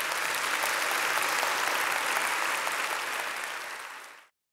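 Audience applauding steadily, easing a little and then cutting off abruptly near the end.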